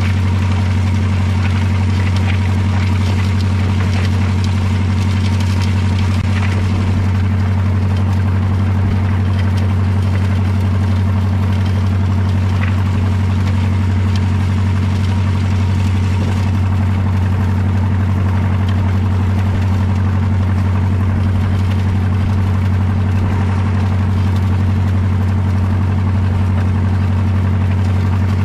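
Tractor's diesel engine running steadily while pulling a corn planter: an even, unchanging low drone, with a few light rattles in the first several seconds.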